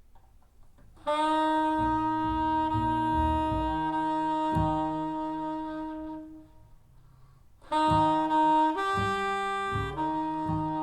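Jazz ballad for saxophone and double bass played back through hi-fi loudspeakers and picked up in the room. The saxophone holds long notes, entering about a second in and again after a short pause near two thirds of the way, over slow double bass notes.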